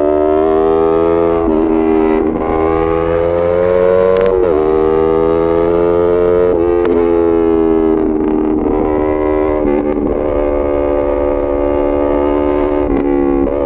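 Yamaha MT-03's 321 cc parallel-twin engine, breathing through a full SC-Project titanium race exhaust, pulling under acceleration. The pitch climbs, then drops sharply at each gear change, several times over.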